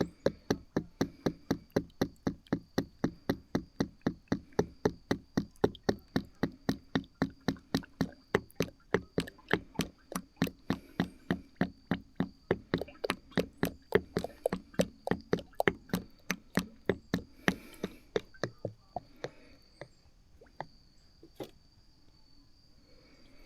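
Oil glugging out of a tipped-over jug as it fills a new hydraulic filter, in an even rhythm of about four glugs a second. The glugs slow and thin out a few seconds before the end, then stop as the filter fills.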